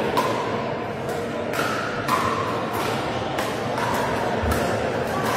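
Pickleball paddles striking plastic balls in rallies on several courts at once: a sharp, hollow pock every half second or so, some with a brief ping, over a low murmur of voices in a large hall.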